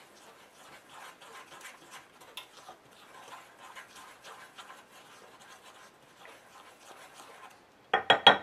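A utensil stirring dry cornmeal and flour in a ceramic mixing bowl: faint, steady scraping and scratching. Near the end comes a quick run of sharp knocks.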